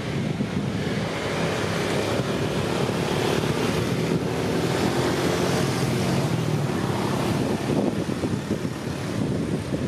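Steady, loud rumbling noise with a deep low end and no distinct events.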